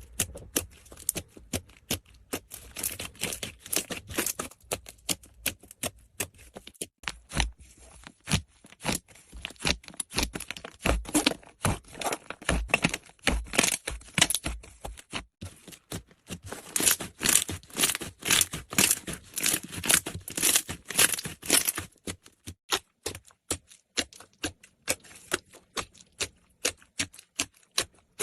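Slime being squeezed and pressed by hand, making a dense run of sharp clicks, pops and crackles.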